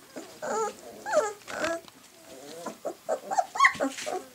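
Bernese Mountain Dog puppies, three to four weeks old, yipping and growling at play: a rapid string of short, high, bending cries mixed with low grumbles, busiest near the end.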